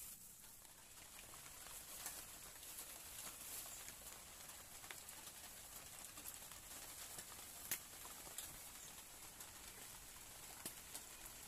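Near silence: faint outdoor ambience with a few scattered soft clicks.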